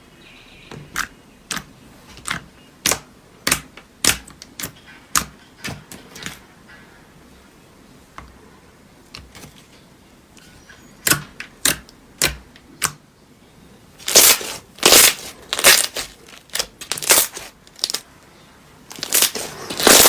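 Slime being pressed and squeezed by hand, giving sharp popping clicks, one or two a second at first, then louder and closer together from about fourteen seconds in.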